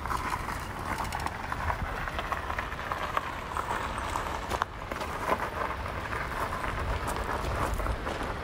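Gravel crunching under the knobby tyres of an off-road wheelchair, mixed with footsteps on the gravel path, a steady run of small crackles and clicks with a low rumble beneath.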